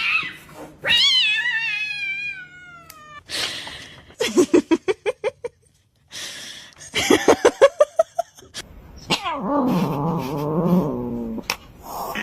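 A domestic cat yowling and caterwauling in protest while its claws are clipped. There is a long wail falling in pitch about a second in, then bursts of rapid stuttering cries, then a long, low, wavering moan near the end.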